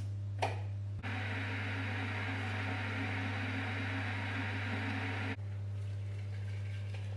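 A steady low electrical hum, with a hissing, whirring machine noise that starts abruptly about a second in and cuts off just past the five-second mark.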